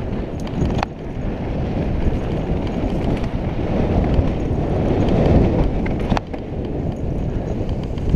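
Mountain bike rolling fast down a dirt singletrack: a steady rush of wind on the microphone mixed with tyre and trail noise. A few sharp clicks and knocks from the bike come about a second in and again near six seconds.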